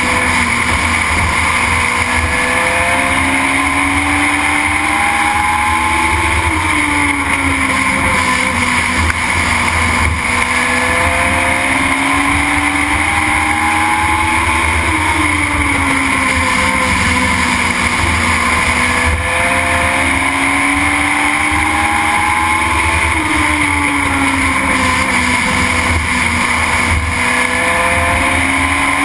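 Legend race car's Yamaha motorcycle engine heard from inside the car at racing speed, its pitch climbing under throttle on each straight and dropping sharply as the driver lifts for the turns, repeating about every eight to nine seconds, over a heavy low rumble and wind noise.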